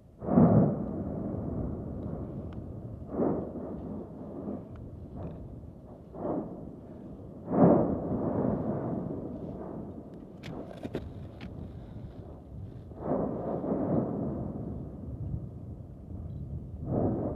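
Strombolian explosions at Etna's Southeast Crater: a series of deep, sudden blasts every few seconds, each trailing off in a rumble, the loudest near the start and about halfway through. A few sharp crackles come between the blasts.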